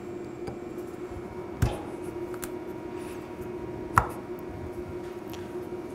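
Metal clicks and knocks as a Lovejoy jaw coupling is worked by hand onto a keyed gearbox shaft: one knock about a second and a half in and a sharper one about four seconds in, with a few light ticks, over a steady shop hum.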